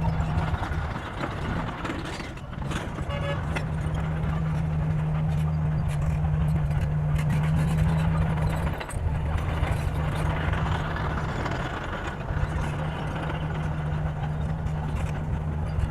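Heavy earthmoving machine's diesel engine running steadily under load, easing off briefly about two seconds in and again for a moment near nine seconds.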